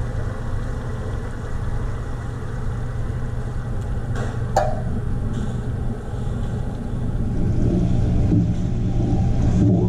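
Water poured from a tomato can into a skillet of simmering ground-beef sauce, with a sharp clink about halfway through. A wooden spoon then stirs the pan in the last few seconds, all over a steady low rumble.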